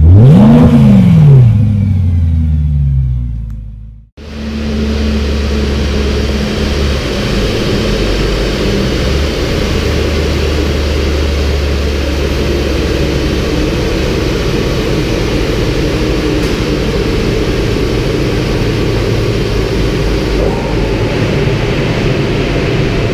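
A BMW M3's quad exhaust blips once, revs rising and falling quickly, then dies away. After a break about four seconds in, a hatchback runs on a chassis dyno with a steady drone at constant revs that does not rise or fall.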